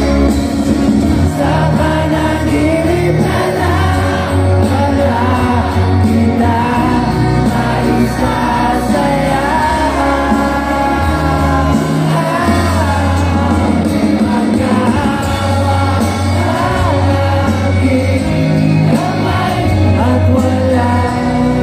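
Live rock band with electric guitars, bass and drums playing a song while a singer carries the melody, heard loud through the concert sound system from the audience.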